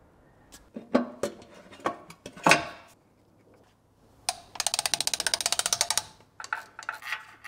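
Metal tools clinking and knocking against the engine, then a ratchet wrench clicking rapidly and evenly for about a second and a half, with a few more clicks near the end, as the oil pan bolts on a BMW M54 engine are run in.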